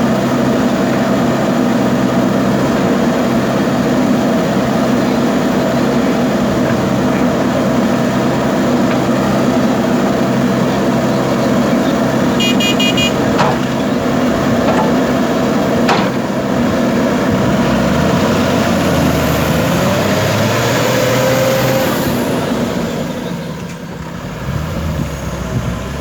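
Diesel engine of a JCB backhoe loader running steadily under working load, easing off near the end. A short run of beeps sounds about halfway through.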